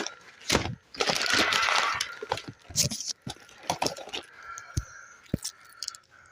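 A package being opened by hand: a burst of rustling and tearing of packaging, then a string of light clicks and knocks as the contents are handled.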